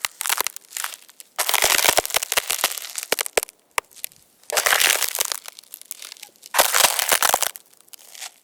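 Footsteps on ice: a series of separate crunching, crackling bursts, each full of sharp cracks, with short pauses between steps.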